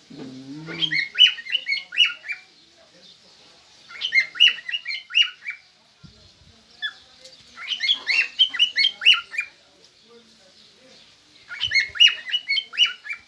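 Birds calling in four bouts of quick, squawky chirps, each bout about a second and a half long, separated by short pauses.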